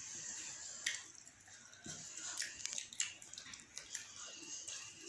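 Eating with the hands: fingers mixing rice and curry on plates, with chewing and irregular small clicks and scrapes.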